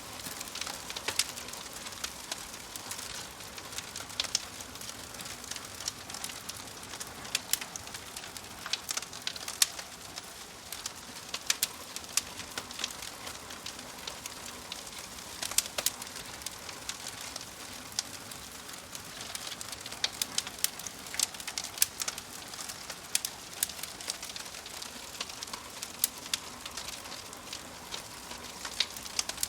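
Wood fire crackling in a wood-burning stove: irregular sharp pops and snaps over a steady soft hiss.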